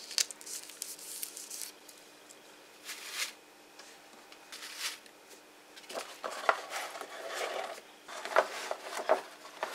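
Rustling and crinkling of shrink-wrapped soap bars pressed into shredded paper filler, and of cardboard gift boxes being handled. It comes in short, uneven spells of rustle with quiet gaps between them.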